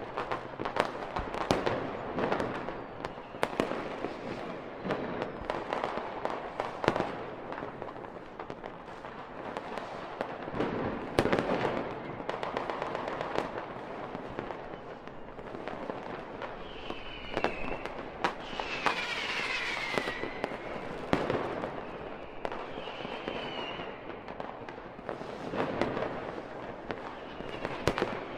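Fireworks and firecrackers going off continuously: many sharp, irregular bangs over a steady crackle. A few short whistling glides come in the second half, one falling in pitch about two-thirds of the way through.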